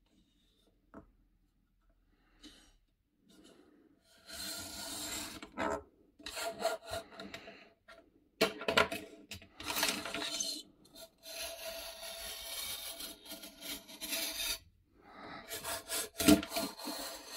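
Circle cutter's blade scraping around through thick paper as it is pressed down firmly and turned, in repeated rasping passes with short pauses, starting about four seconds in. The cutter needs fairly hard pressure to cut.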